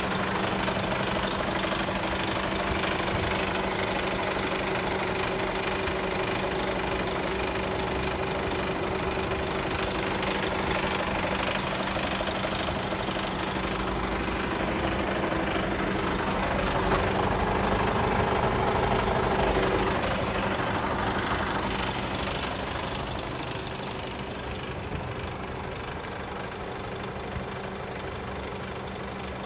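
Mercedes-Benz Actros 1840's 400 hp Euro 6 straight-six diesel engine idling steadily, growing quieter about two-thirds of the way through.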